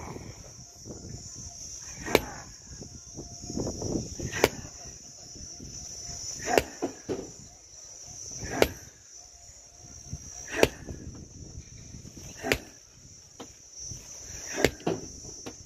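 Sledgehammer blows breaking stone blocks by hand: seven heavy strikes about two seconds apart, over a steady high chirr of insects.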